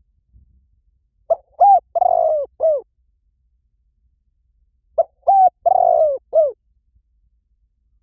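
Spotted dove cooing: two phrases a few seconds apart, each of four arched coos, the third coo the longest.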